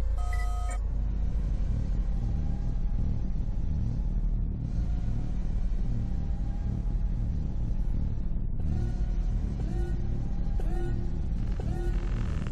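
A steady low rumble. From about two-thirds of the way through, a short rising tone repeats about once a second over it.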